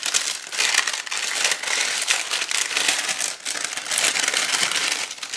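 Clear plastic packaging and paper wrapping crinkling steadily as they are handled, a dense run of fine crackles that goes on without a break.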